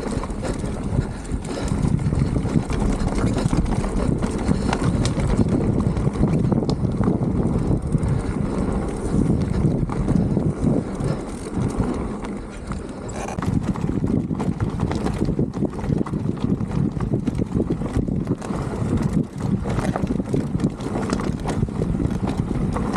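Mountain bike rolling fast down a rocky, gravelly trail: a steady rumble of tyres over stones and wind buffeting the microphone, with frequent rattles and knocks as the bike bounces over rocks.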